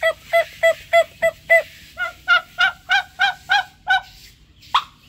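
White domestic turkeys calling: a series of short yelping notes, about three a second, in two runs with a brief pause between. One sharp squeak follows near the end.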